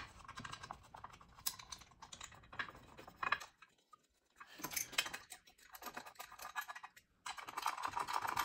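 Scattered light clicks and taps of a metal engine side cover being fitted against the crankcase and its bolts put in by hand, with a denser run of small rattling clicks near the end.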